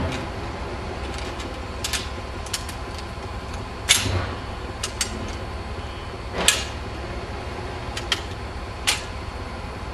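Sharp metal clanks, irregularly spaced and about eight in all, the loudest about four and six and a half seconds in, as the levers of a railway ground frame are pulled and set to change the points. Under them, the steady low idle of a Class 14 diesel-hydraulic shunter.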